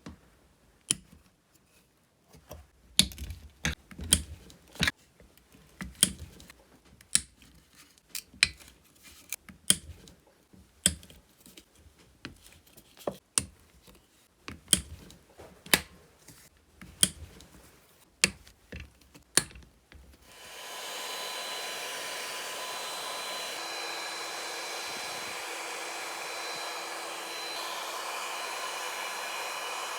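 Repeated hammer blows on a chainsaw part during disassembly, a sharp knock roughly every half second to second, some in pairs. About 20 s in they stop and a small electric blower motor starts, running steadily with a high whine.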